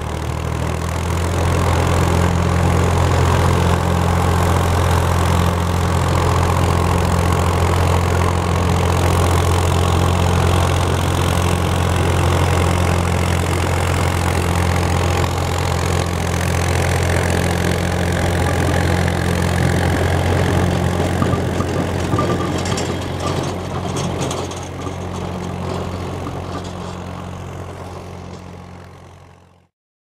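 Vehicle engine running steadily at low revs, heard from inside a pickup truck's cab as it creeps along, with a steady low hum. It cuts off suddenly near the end.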